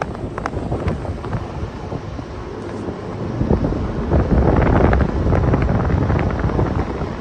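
Wind buffeting the microphone in low rumbling gusts that grow stronger about halfway through, with a few faint hoof clicks in the first second or so.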